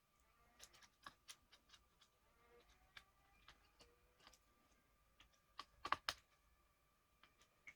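Faint scattered light clicks and taps of hands working on a laptop, with a louder cluster of clicks about six seconds in, over a faint steady high tone.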